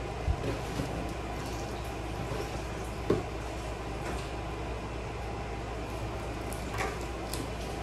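Cardboard boxes handled by a small child: a few soft knocks and rustles over a steady background hiss.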